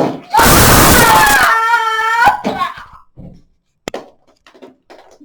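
A child's voice making a play-battle sound effect: a loud, noisy blast followed by a high, drawn-out wailing cry. After it comes a single sharp click and a few faint small sounds.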